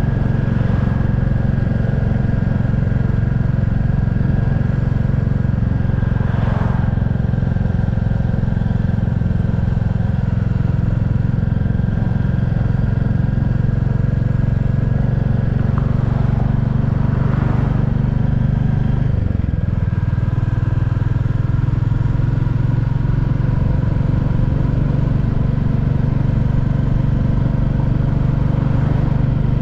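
Royal Enfield Classic 350 Reborn's single-cylinder engine running steadily through its stock exhaust, with a slight shift in the engine note about two-thirds of the way through.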